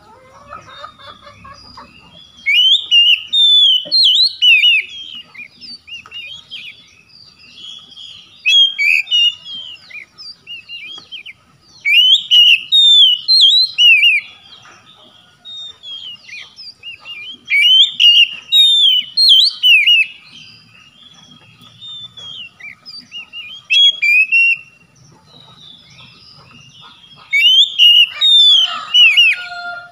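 Oriental magpie-robin singing: loud, varied whistled phrases of quick rising and falling notes, delivered in bursts of one to three seconds with short pauses between, about six times.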